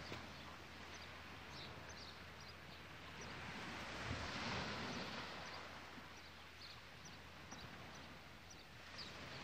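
Faint seaside ambience: a steady soft hiss of calm sea and air that swells briefly about four seconds in, with scattered faint high chirps.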